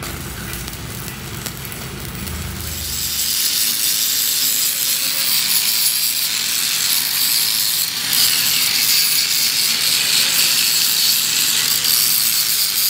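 Angle grinder grinding down the weld on a cracked steel truck front axle, cutting in about three seconds in with a loud, steady hiss that holds to the end. Before that, a lower crackling hum from the welding.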